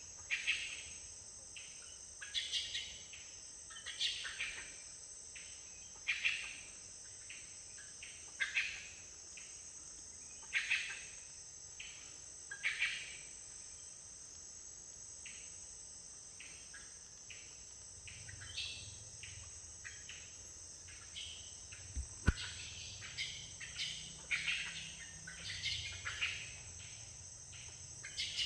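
Forest ambience: a steady high-pitched drone of insects, over which an unseen animal gives short, repeated calls about every two seconds, coming faster and more tangled past the middle. A low hum joins in past the middle, and a single sharp click about two-thirds of the way through is the loudest moment.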